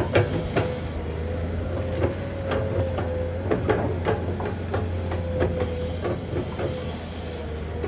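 Komatsu PC210 hydraulic excavator running steadily, with a low diesel engine hum and a wavering hydraulic whine, over irregular clunks and knocks as the bucket works the heaped soil.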